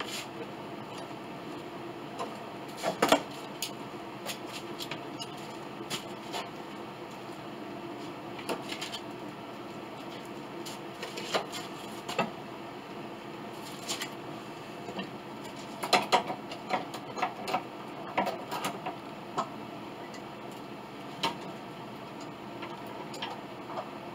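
Steel C-clamps and bar clamps clicking and knocking as they are fitted and tightened onto a wooden piano part, in scattered taps with a busier cluster about two-thirds of the way through, over a steady low hum.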